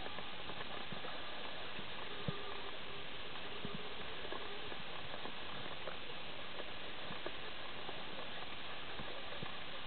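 Underwater ambient noise picked up by a submerged camera: a steady hiss with many faint, scattered clicks and crackles, one sharper click about two seconds in.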